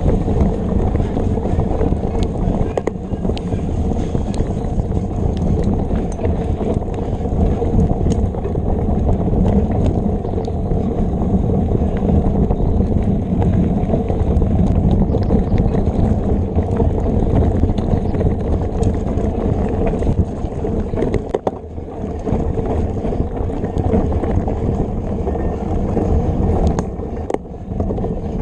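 Wind on the microphone of a bike-mounted action camera with mountain bike tyres rolling over a dirt trail at race pace, steady and heavy in the low end, with scattered clicks and knocks from the bike over bumps.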